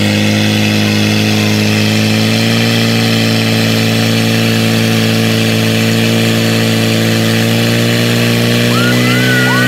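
Portable fire pump's engine running steadily at full throttle, a loud, even drone held at high revs while it pumps water through the hose line to the nozzles.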